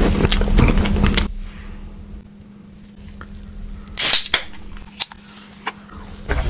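Close-up eating and food-handling sounds: a dense run of sharp clicks and snaps for about the first second, then quieter, with one loud sharp crunch about four seconds in and a few single clicks after it.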